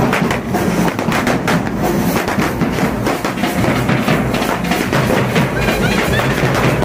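Street band with large bass drums and a clarinet playing a processional beat, mixed with a string of firecrackers crackling.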